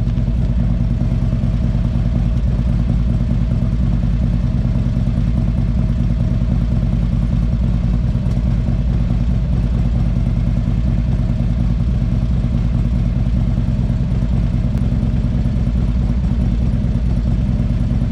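Harley-Davidson V-twin engine idling steadily, with a fast, even firing pulse.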